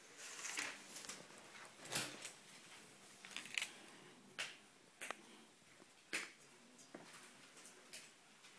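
Faint, scattered light clicks and taps, about a dozen of them a second or so apart, from paws and claws on a tiled floor and knocks against a metal chair frame.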